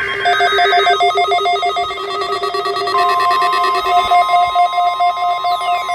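NOAA Weather Radio test alert: the tail of a digital SAME header burst (a brief screechy data tone), then rapidly pulsing electronic beeps on several pitches. About halfway through, a steady high alert tone joins in, and near the end several falling pitch sweeps begin.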